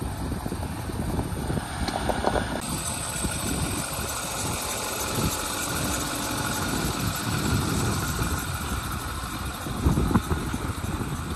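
Ford F-250 Super Duty pickup engine idling steadily.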